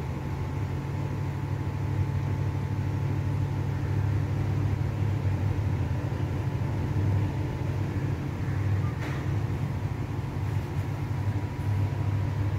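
Steady low machine hum with a faint, even higher-pitched whine over it.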